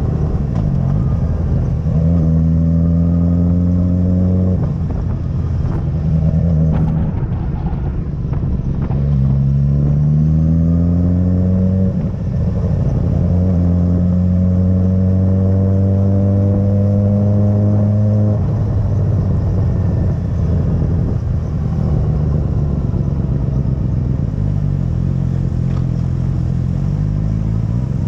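Motorcycle engine at speed on a race track, revving up in several stretches with the pitch climbing in each and breaking off between them as gears change or the throttle closes. In the last third it runs at lower, less even revs.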